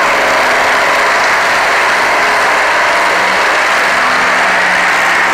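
A monster truck's engine running loud and steady as the truck drives across the dirt.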